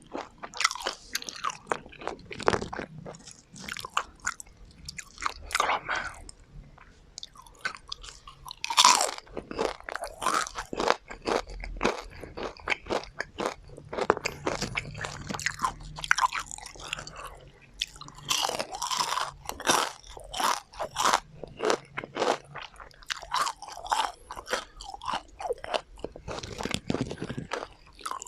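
Close-miked chewing of crispy deep-fried chicken tendon: loud, irregular crunching with a few sharper bites.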